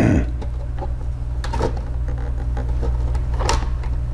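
Plastic laptop case being pressed and worked into place, giving a few sharp clicks and knocks: two close together about a second and a half in and another near three and a half seconds, over a steady low hum.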